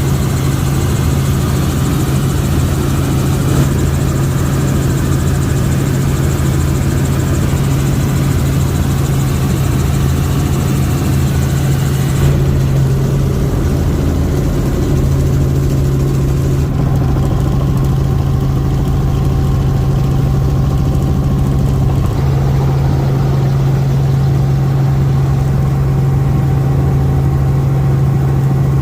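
Helicopter in flight, heard on board: a loud, steady drone of rotor and engine with a constant hum, the hiss above it thinning about 12 seconds in and again near 17 seconds.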